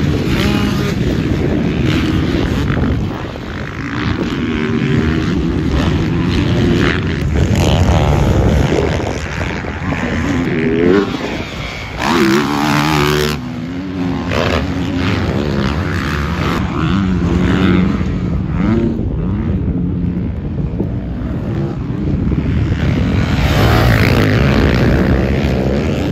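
Motocross dirt bike engines revving up and down hard as the bikes accelerate and back off on a dirt track, the pitch rising and falling throughout.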